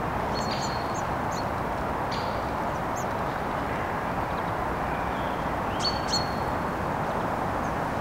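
Small songbirds calling over a steady low background rumble: scattered short high chirps, a thin held whistle near the start, and a louder cluster of calls with another held whistle about six seconds in.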